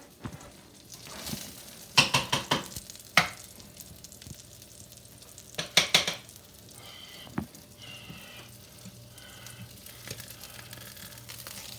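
Beef burgers sizzling in a frying pan, with two bursts of clattering from a utensil against the pan about two and six seconds in as the burgers are turned.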